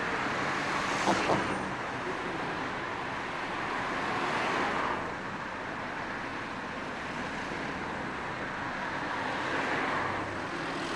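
Road traffic noise: a steady rush of passing vehicles, swelling about four seconds in and again near the end.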